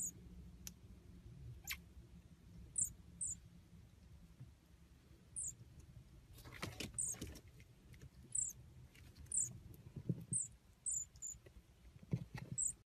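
Marmoset giving short, very high-pitched chirps, about a dozen spread irregularly, with a few soft knocks and rustles in between.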